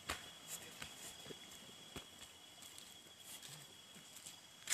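Footsteps: scattered soft clicks and crackles at an uneven pace, the loudest near the end, over a steady faint high-pitched whine.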